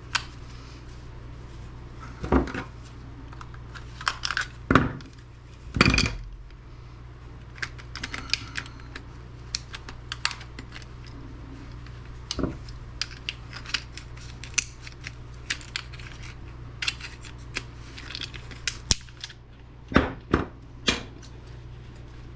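Hand tools and small metal and plastic parts clinking and clattering on a workbench while a small electric heater is taken apart. Irregular light clicks, with a few louder knocks, over a steady low hum.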